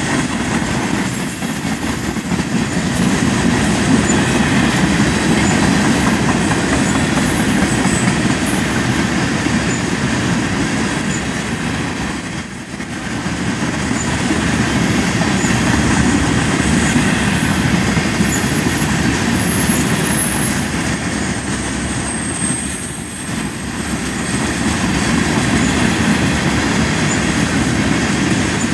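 Loaded railroad tank cars rolling past: a steady, loud rumble and clatter of steel wheels on the rails. A thin high-pitched squeal runs over it for the first few seconds and again through much of the second half, and the rumble dips briefly about twelve seconds in.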